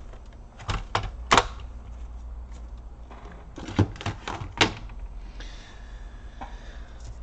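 Hard plastic laptop casing clicking and knocking as the palmrest top case is lifted off the base and set aside. There are a few sharp clicks about a second in and a louder cluster of knocks around four seconds.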